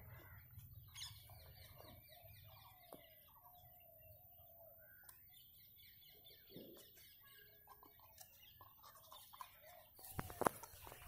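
Faint bird calls in the background. Near the end come a few sharp clicks as the German Shepherd's teeth catch the metal object it is gnawing.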